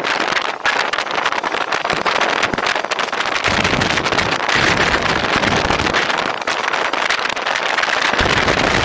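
Wind rushing over the microphone of a camera on a moving personal electric vehicle, a steady hiss with low buffeting gusts that come and go several times.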